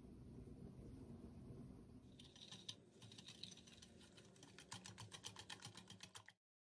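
Wire whisk beating eggs and sugar in a glass bowl. Its wires tap and click against the glass, starting about two seconds in and speeding up to a quick, even rhythm of about six strokes a second, then cutting off suddenly.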